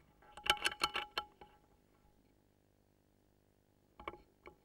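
A quick run of sharp metallic clicks and clacks from an Air Arms S410 air rifle, as of its side lever being cycled to reload after a shot, starting about half a second in. A few fainter clicks follow near the end.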